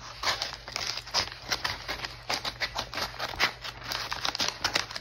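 Scissors cutting along the edge of a plastic poly mailer: a quick, irregular run of short snips.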